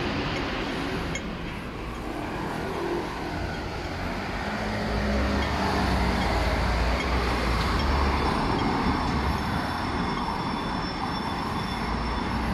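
City street traffic: a steady hum of engines and tyres, with a vehicle passing close by whose low engine rumble swells through the middle and fades again.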